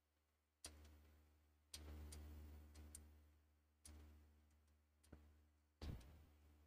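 Faint clicks and knocks, about six of them, several fading out over about a second, as the metal parts of a woodworking machine are handled and adjusted by hand. A low steady hum runs underneath.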